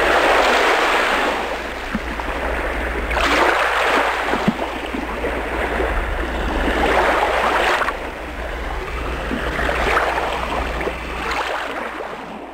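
Surf: waves breaking and washing up on a beach, swelling and fading about every three to four seconds over a steady low rumble.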